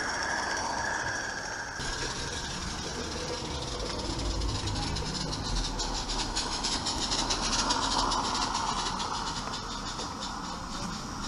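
Live-steam garden railway locomotive and its train running past on the track, with a fast run of even clicks through the middle of the pass.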